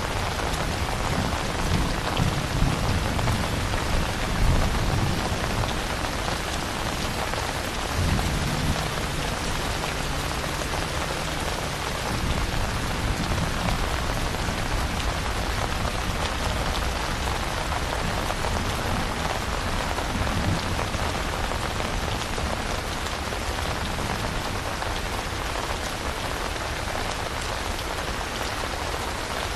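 Steady heavy rain hissing, with low rolling thunder rumbling under it through roughly the first third, swelling twice before dying away and leaving only the rain.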